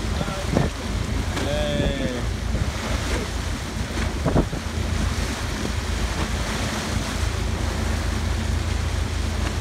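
Motorboat under way: water rushing and splashing along the hull from the bow wave over a steady low engine hum, with wind buffeting the microphone.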